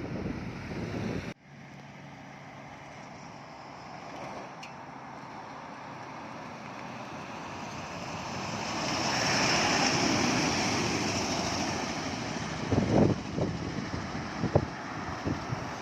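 Heavy road traffic: a loud rumble cuts off suddenly about a second in, then a passing vehicle's engine and tyre noise swells to a peak about ten seconds in and fades. Wind thumps on the microphone a few times near the end.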